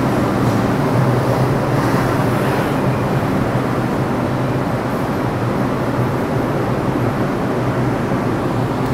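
New York City subway train of R142-series cars pulling into the station past the platform, a steady loud rumble of wheels on the rails that eases slightly as the train slows to a stop.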